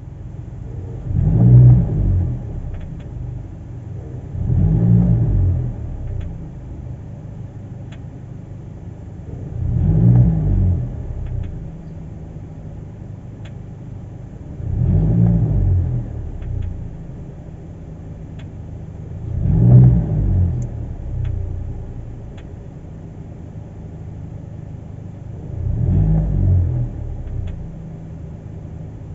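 2022 Hyundai Kona petrol engine revving up and easing off six times, each rise and fall in pitch followed by one or two sharp clicks. The clicking comes with acceleration and deceleration in drive and not in neutral, a fault that 98 octane fuel has not cured.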